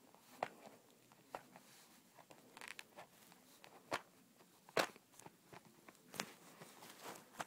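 Pomeranian eating dry kibble off a paper plate: scattered crunches and clicks at irregular intervals, the loudest a little under five seconds in.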